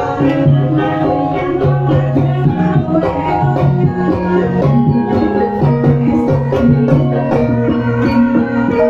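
Javanese gamelan ensemble playing a Banyumasan gending: bronze saron and demung keys struck with mallets in a busy, steady pattern over the long-ringing tones of kenong pots and hanging gongs.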